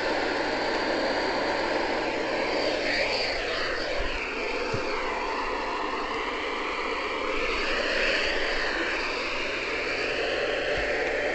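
Weather radio receiver hissing with loud, steady static where the broadcast voice has dropped out, with faint wavering whistles of interference drifting up and down through it.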